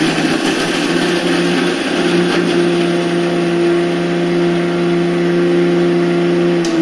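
Electric kitchen mixer grinder running at a steady speed, its small stainless-steel jar held down by hand while it grinds: an even, loud motor hum and whine that does not change in pitch.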